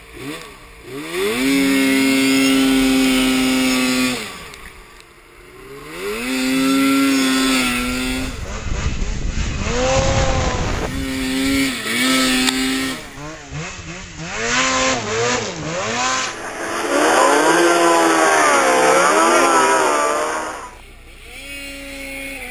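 Snowmobile engines revving up and down with the throttle, the pitch climbing and falling again in several bursts. The sound breaks off and changes abruptly every few seconds.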